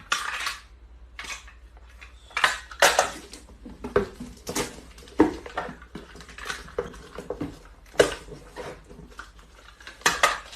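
Irregular clattering and clinking of hard objects, about a dozen sharp knocks and clinks at uneven intervals.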